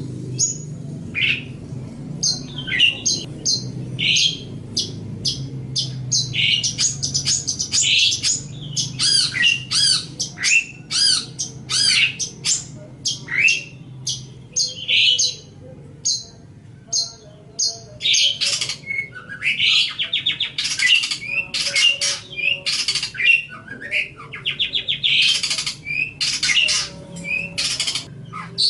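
Long-tailed shrike (cendet) singing a rapid, varied stream of short harsh notes and quick chirps and whistles, thinning out briefly around the middle before running dense again.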